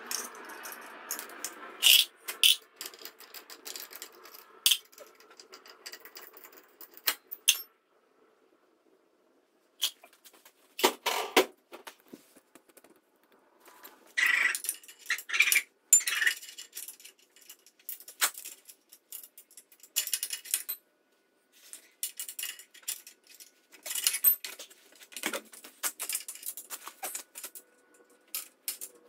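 Hand tools clinking and scraping on metal: a hex key being worked in the bolts of a homemade buggy's chain-drive spool bearing carrier. An irregular run of sharp metallic clicks and taps, with two short pauses.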